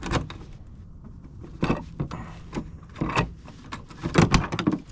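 Loose rear cargo (barn) door handle and latch on a 1995 GMC Yukon being worked: a series of clicks and clunks, busiest and loudest near the end, as the hard-to-open door is forced.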